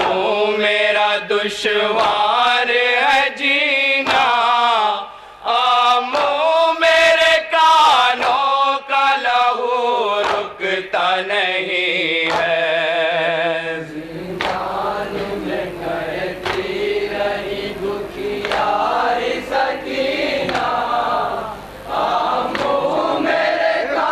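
A group of men chanting an Urdu nauha lament in unison, with the regular slaps of hands beating on chests (matam) keeping time. About two-thirds of the way through, the sound becomes a denser, less clear mass of many voices and slaps.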